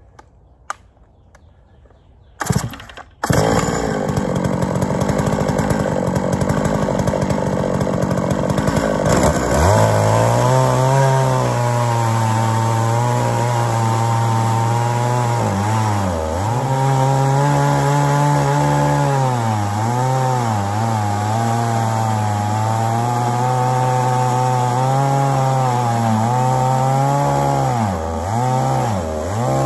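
Holzfforma G660 two-stroke chainsaw on a chainsaw mill, started with the decompression valve and catching about three seconds in, then running at high revs. About ten seconds in it settles into a lower, labouring note as it rips a slab from a red oak log, the pitch dipping now and then under load.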